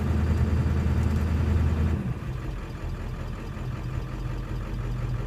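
Engine running at a rough idle. About two seconds in, the sound drops quieter and lower, then idles on steadily.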